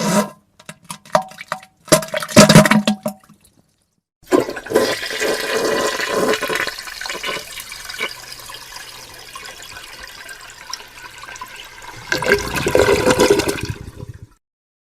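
A few short fart sounds in the first three seconds. Then a toilet flushing for about ten seconds, which swells again near the end and cuts off suddenly.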